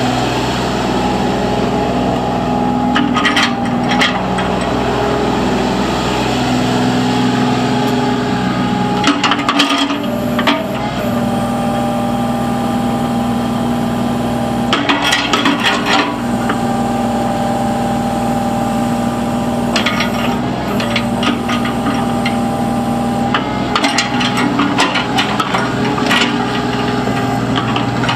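Kubota KX91-3 mini excavator's 28 hp Kubota diesel running steadily as the machine is operated, its note shifting a few times. Bouts of clattering and knocking come and go as it works.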